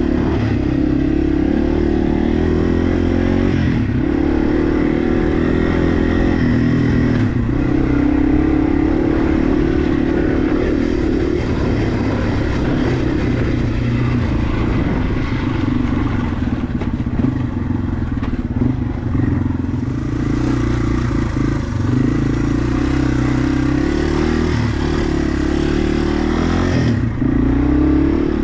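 Yamaha TW200's air-cooled single-cylinder engine running as the bike is ridden at low speed, its note dipping and rising several times.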